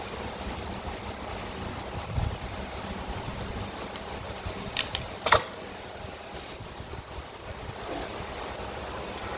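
Steady outdoor background noise, with two sharp clicks about half a second apart near the middle.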